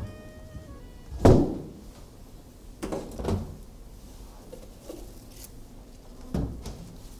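A few dull thumps and knocks of things being handled and set down on a kitchen counter, the loudest about a second in, two close together near the middle and one more near the end. A music cue fades out at the very start.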